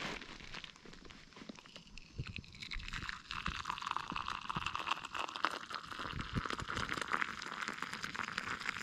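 Hot coffee poured from a camp kettle in a steady stream into a wooden kuksa cup, splashing as the cup fills. The pour starts about two seconds in.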